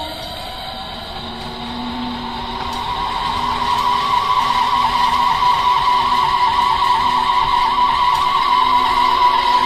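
Three-phase geared electric motor driving a permanent-magnet generator, running with a high whine that rises in pitch briefly at the start as the shaft speeds up. The whine then holds a steady pitch and grows louder over the next few seconds.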